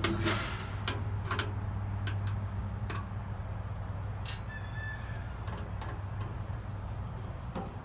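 Screwdriver backing out the screws of a pellet grill's factory controller from its sheet-metal hopper box: scattered light clicks and ticks, with one sharper metallic click about four seconds in that rings briefly. A steady low hum runs underneath.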